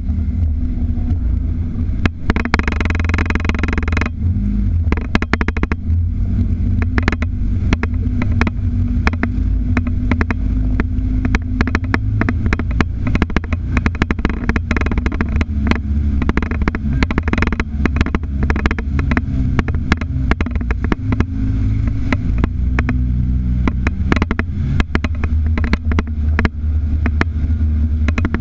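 Off-road utility vehicle's engine running steadily with a deep low rumble as it drives through shallow water and over rocks. Many short knocks and rattles from the body run through it, with a spell of water splashing a couple of seconds in.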